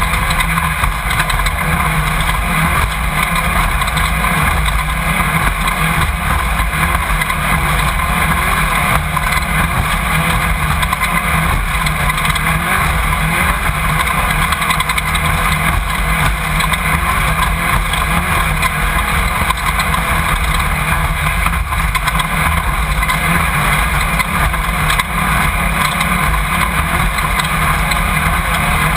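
Off-road race vehicle's engine and drivetrain running hard, heard on board through a mounted camera: a loud, steady din of engine, wind and chassis noise with no let-up.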